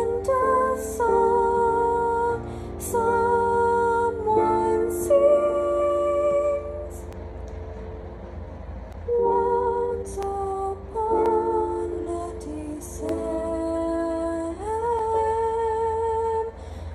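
A girl singing a musical-theatre song solo, holding long notes with vibrato, with a softer passage in the middle and a rising slide into a held note near the end.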